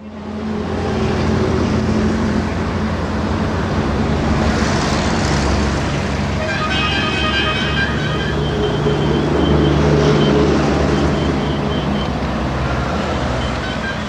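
WDM-2 diesel locomotive's ALCO 251 V16 engine chugging steadily under load as it approaches. Its horn sounds for about a second and a half about seven seconds in, with fainter toots near the end.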